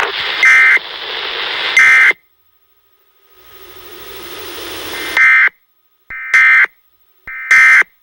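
Emergency Alert System data tones: five short, shrill, buzzing bursts, two in the first two seconds and three in the last three, with a hiss between them that grows louder before the third burst.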